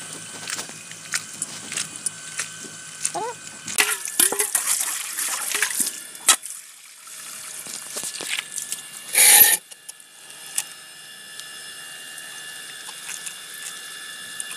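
Water splashing and sloshing in a steel bowl as small mushrooms are washed by hand, busiest about four to six seconds in. Partway through, water from a hose pours into the bowl, with one brief loud splash about nine seconds in.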